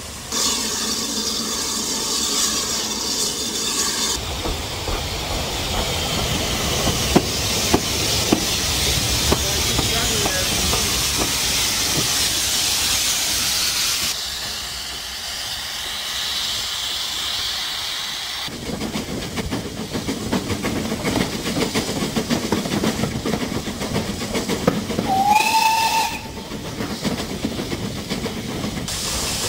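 Steam locomotive letting off a loud hiss of steam, then running with a low rumble and scattered clicks from the track. A short steam whistle blast sounds about a second long near the end.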